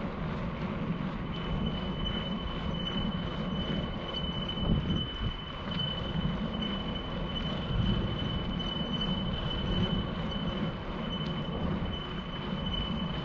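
Wind rushing over the microphone and tyre rumble on asphalt from a bicycle riding along a paved path. A thin, steady high-pitched whine starts about a second in and holds one pitch through the rest.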